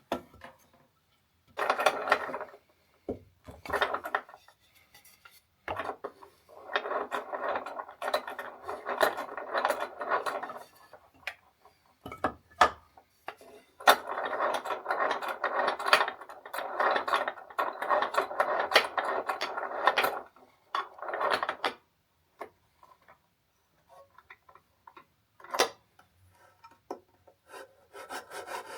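Hand tool cutting into a pine workpiece in long bursts of rough, scraping strokes, with shorter bursts and scattered sharp knocks and taps in between.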